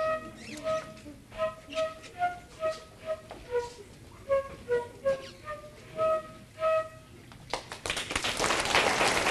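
A child playing a concert flute solo, a tune of short separate notes that ends about seven seconds in. Audience applause then starts and swells near the end.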